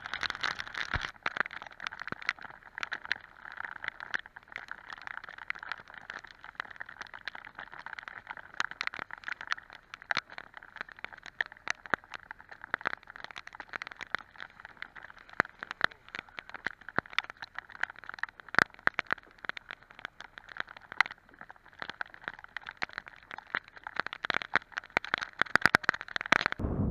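Rain and water spray striking close by: many irregular sharp taps over a steady hiss, thickest near the end.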